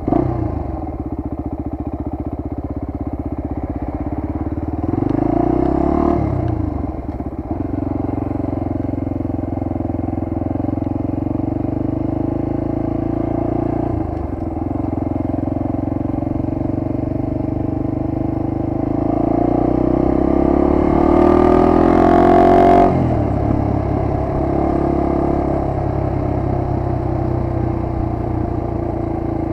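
1998 Honda XR250R's single-cylinder four-stroke engine running as the bike is ridden along, its note shifting with the throttle. Around twenty seconds in the engine note climbs with a brief rushing hiss, then drops abruptly.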